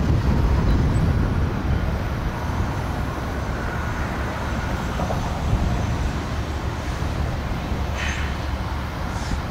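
Steady low rumble outdoors as the BNSF stack train's diesel locomotives approach from a distance, with a couple of brief faint high squeaks near the end.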